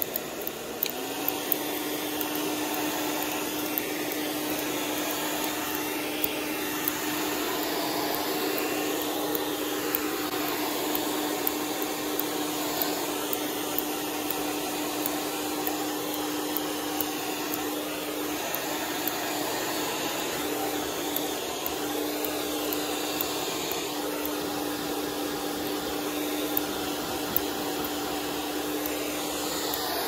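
Hand-held hair dryer running steadily: rushing air with a motor hum that steps up in pitch about a second in, then holds.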